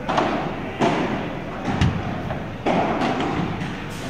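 Padel ball struck back and forth with rackets in a rally: sharp pops about once a second, each echoing in a large indoor hall, with two hits close together near the middle.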